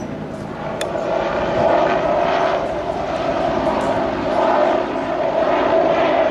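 AH-1 Cobra attack helicopter flying low overhead, its turbine and rotor noise growing louder about a second in and staying loud.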